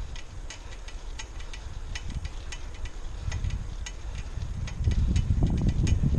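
Wind buffeting the microphone of a camera on a moving bicycle, a low rumble that grows louder about five seconds in, with faint clicks recurring a couple of times a second.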